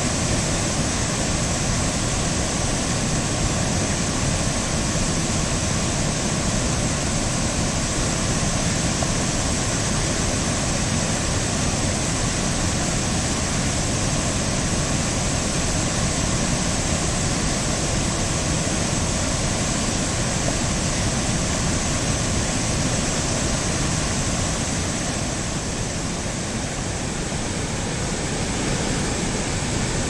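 Steady, loud rush of a wide, low river waterfall pouring over a rock ledge into churning whitewater, turning a little quieter and duller near the end.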